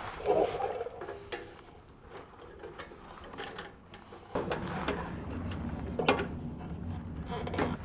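Ratcheting box-end wrench clicking as bolts are turned, with scattered metal clinks of tools. A low steady hum comes in about halfway.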